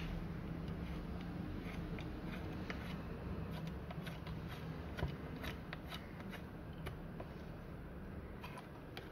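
Light metallic clicks and scrapes as a hand handles and tightens a steel speaker wall bracket, with a louder knock about five seconds in, over a low steady hum.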